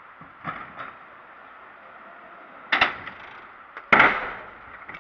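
Freestyle scooter hitting a skatepark box: a couple of light knocks, then two sharp clacks of deck and wheels striking the ramp, about three and four seconds in, the second the loudest.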